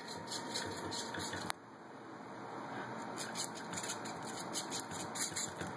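Hobby servo motors of two small robotic arms whining in short, irregular spurts as the arms jitter. A faint steady hum cuts off suddenly about a second and a half in.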